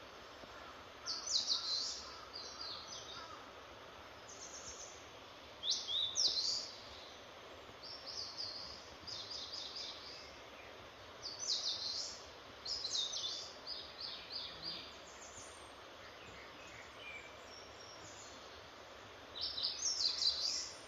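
Bird singing: short phrases of quick, high notes repeated every few seconds, over a steady background hiss.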